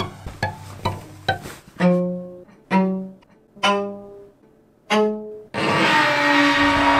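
Suspenseful string score: short plucked notes about two a second, then four longer, deeper notes about a second apart, breaking into a loud, dense sustained swell about five and a half seconds in.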